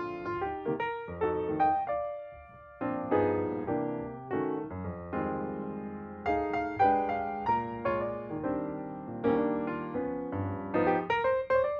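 Background piano music: a melody of struck notes over chords, each note fading after it is struck.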